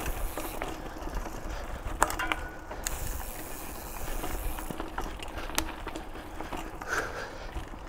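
Mountain bike rolling along a dirt trail: steady tyre and riding noise with scattered sharp clicks and rattles from the bike, the sharpest about two seconds in, over a low wind rumble on the microphone.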